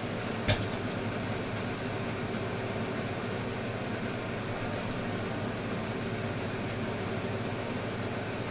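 Steady hiss and low hum of room noise, with one sharp click about half a second in followed by two fainter clicks.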